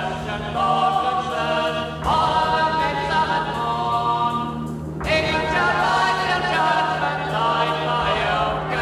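Choral music: a choir singing long held chords over a steady low drone, with the chord changing about two seconds in and again about five seconds in.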